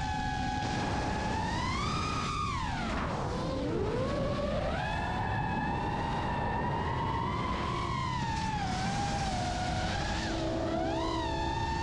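A high-revving motor's whining note, sliding up and down in pitch: it climbs about two seconds in, drops steeply, then climbs again and holds, with two short upward blips near the end.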